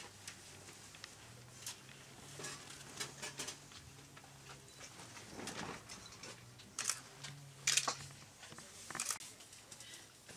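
Wet clay being pressed and worked by hand on a wooden board: about ten soft, irregular taps and clicks over a faint low hum.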